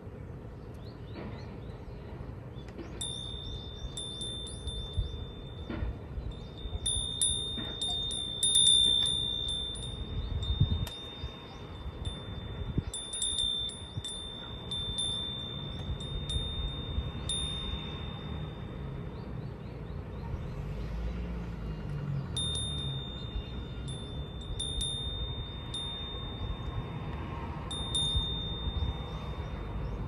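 A wind chime ringing in the breeze: a high, bell-like tone struck over and over, falling silent for a few seconds past the middle and then ringing again, over a low wind rumble.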